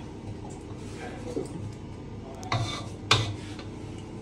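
Wooden spatula stirring curry in a saucepan, with two sharp knocks about half a second apart a little past halfway as the spatula taps against the pot. A low steady hum runs underneath.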